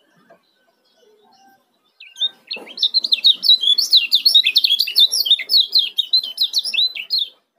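Kecial kuning, the Lombok white-eye, singing a fast, tightly packed run of high chirping notes. The song starts about two seconds in and stops just before the end.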